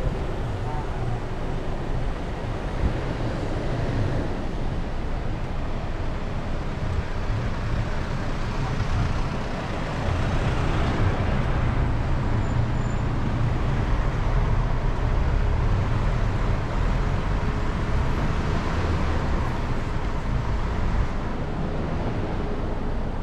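City road traffic heard from a moving bicycle: a steady wash of passing cars and buses over a low rumble, swelling louder about ten seconds in and again near nineteen seconds.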